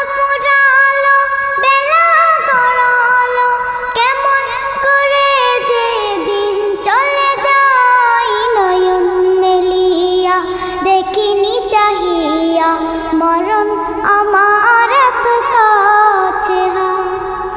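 A young girl singing a Bengali gojol (Islamic devotional song) solo, her melodic line wavering and ornamented.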